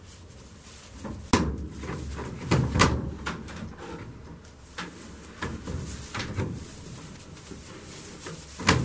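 A series of sharp wooden knocks and thumps inside a wooden shed, the loudest about a second and a half in, a cluster just after two and a half seconds, and another near the end, with rustling in between.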